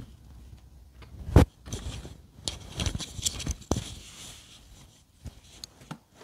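A wool check scarf rustling and scraping against a clip-on microphone as it is wrapped around a neck, with irregular knocks and scratchy rubbing, the loudest knock a little over a second in.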